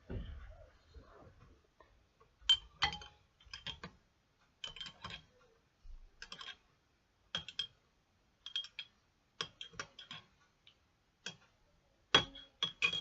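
Sharp little clicks in pairs and threes, about one cluster a second, as sticky slime is worked and gathered up off a plate.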